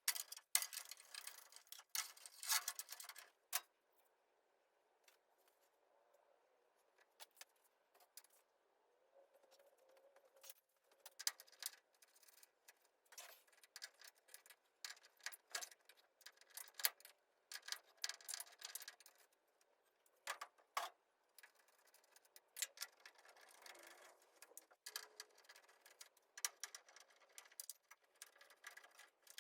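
Faint, irregular clicking, rattling and scraping of hand tools and small metal parts being worked loose.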